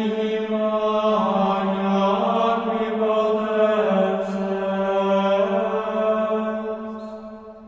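Slow, chant-like background music: a held low drone with long sustained tones above it that shift every second or two, fading out near the end.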